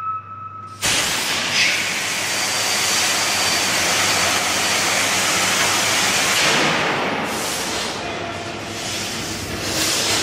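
B&W CM 884WS eight-cylinder two-stroke diesel engine being started: a sudden loud rush of hiss cuts in about a second in, then holds as a steady, dense hiss of air and machinery that dips a little and swells again near the end.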